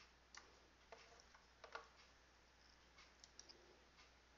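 Near silence broken by a handful of faint computer mouse and keyboard clicks as a query is selected and run.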